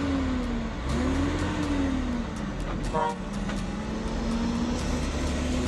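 Heavy log truck's engine running under load, its revs rising and falling as it creeps along. About three seconds in there is a brief higher tone.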